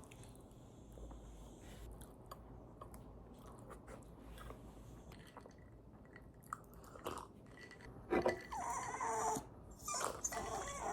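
Quiet chewing and crunching of food, with small scattered clicks. Near the end, a louder pitched vocal sound comes twice.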